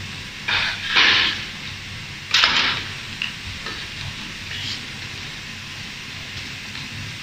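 Automated fiber laser welding machine for brass parts at work: a few short hissing bursts in the first three seconds, then fainter ones, over a steady low machine noise.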